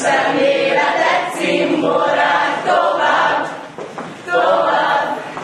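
A group of students singing a song together without accompaniment, in phrases with a short break about four seconds in.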